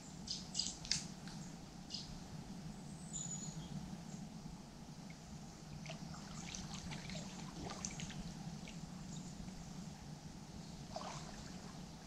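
Shallow river water trickling faintly, with scattered small splashes from wading, clustered in the first second, in the middle, and again near the end.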